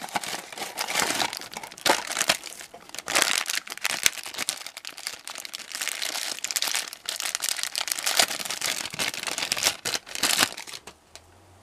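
A cardboard blind box being opened, then the shiny black plastic bag inside crinkled and torn open by hand. The crinkling comes in irregular spurts and stops about a second before the end.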